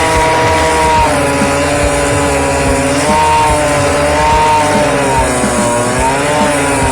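Background music: long held notes that slide from one pitch to the next over a steady low beat.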